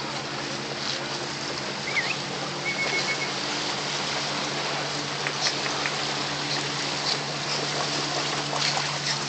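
Small waves lapping and breaking on a gravel lakeshore, with scattered small splashes in the second half and a steady low hum underneath.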